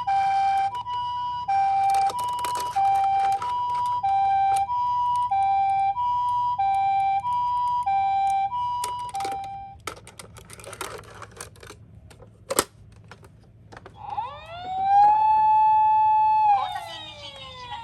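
Toy ambulances' electronic sirens: a two-tone hi-lo siren alternating steadily between a high and a low note, each about half a second, stops after about nine seconds; a few light clicks and rattles follow, with one sharp click. Then a single siren wail rises, holds and falls away near the end, the loudest sound.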